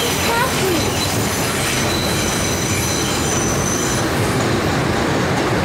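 NYC subway train heard from inside the moving car on the elevated line: a steady rumble of wheels on rails, with a thin high-pitched wheel squeal over it that fades out about four seconds in.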